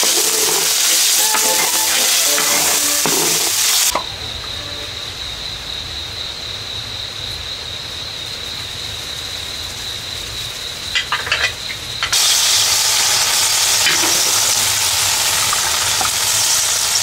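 A wok of fish soup with tofu and fried egg boils hard with a loud, even sizzling hiss. About four seconds in it drops away to a quieter stretch with a steady high-pitched tone and a low hum, with a few clicks just before the loud sizzling hiss returns about twelve seconds in.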